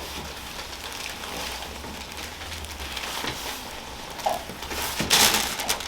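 Rustling and shifting of a patient on a chiropractic treatment table over a low hum, with a louder burst of rustling about five seconds in.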